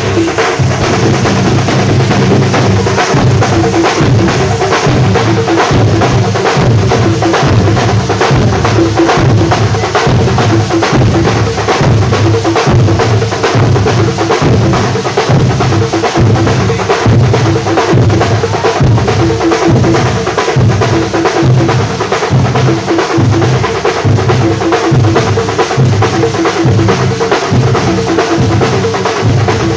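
Loud, drum-heavy band music: bass drum and snare keep a fast, steady beat, with short pitched notes over it.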